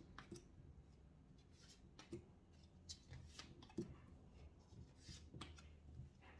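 Faint, soft swishes and taps of tarot cards being slid off a hand-held deck and laid down on a table, a dozen or so scattered strokes, the loudest a little under four seconds in.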